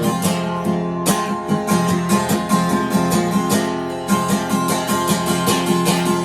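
Acoustic guitar strumming chords in a steady rhythm, an instrumental passage of a song.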